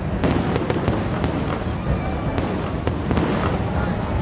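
Aerial fireworks shells bursting: an irregular string of about a dozen sharp bangs over a steady rumble and crackle of overlapping reports.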